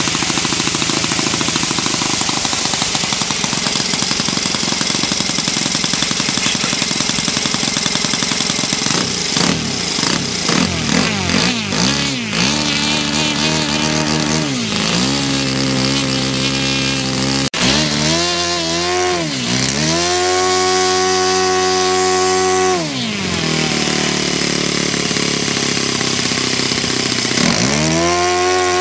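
Saito 14 cc four-stroke model aircraft engine running on the ground with its propeller spinning, being revved up and down: steady at first, then a series of quick blips, then held at high revs for a few seconds past the middle before dropping back to a slower run, and revving up again near the end.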